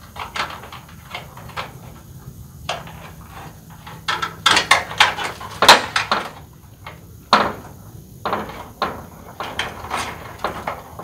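Cut wire being looped and fastened around a gate to make a latch: irregular small clicks and taps, with a cluster of louder knocks about halfway through.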